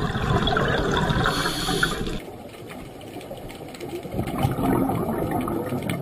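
Underwater sound of moving water, a rushing, bubbling noise. It is louder for the first two seconds, then drops abruptly to a quieter wash that swells again later.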